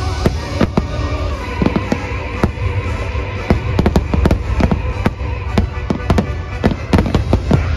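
Aerial fireworks shells bursting in quick succession: a dense string of sharp bangs and pops over a steady low rumble, with show music playing underneath.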